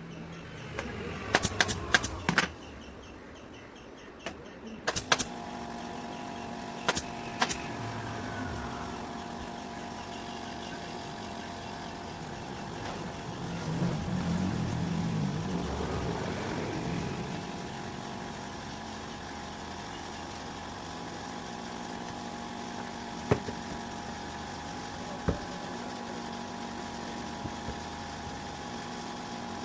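Sharp clicks in quick clusters, a few at a time, over a steady mechanical hum that sets in a few seconds in and swells briefly midway.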